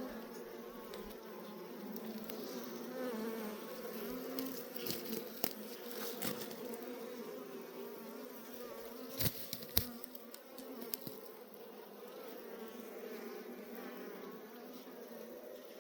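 A honeybee colony buzzing steadily, with a few sharp knocks or clicks about a third of the way in and again past the middle.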